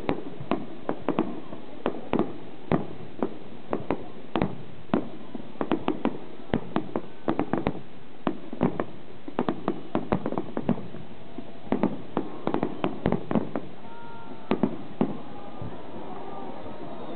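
Aerial fireworks going off: a rapid, irregular string of sharp bangs and cracks, several a second at the busiest points.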